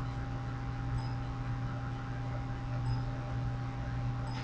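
Steady low electrical hum with a faint hiss, the background noise of a desktop recording setup, with a faint click near the end.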